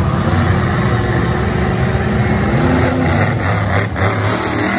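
Monster truck engine running loudly as the truck drives across the dirt arena, revving up with a rising pitch about halfway through.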